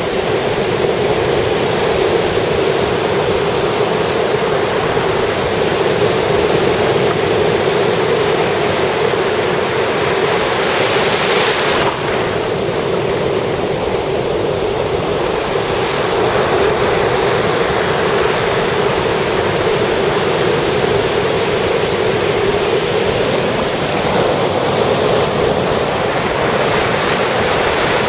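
Sea surf breaking and washing up a beach in a continuous rush, with one brighter, louder wash about eleven seconds in.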